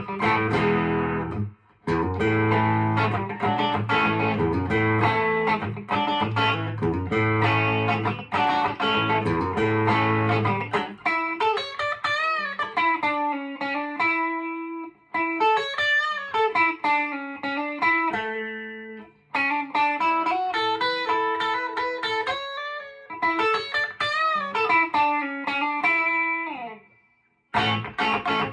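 Electric guitar played through a 1976 Music Man HD130 amp with a 12AX7 tube phase inverter, cranked to about 7 with bass and mids turned down and breaking up into overdrive. Heavy chords ring for the first ten seconds or so, then single-note lead lines with string bends follow, and chords return near the end.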